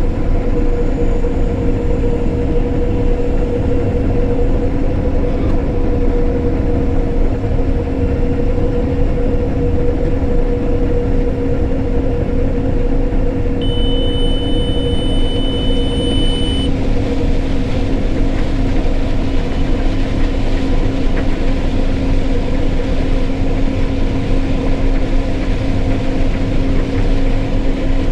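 Case IH Axial-Flow combine running steadily while harvesting corn, a constant low rumble with a steady two-note hum. About halfway through, a high beep sounds for about three seconds.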